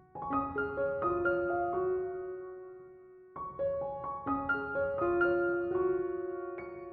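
Background piano music: gentle phrases of single notes. A phrase starts just after the beginning, fades, and a new one starts about three and a half seconds in.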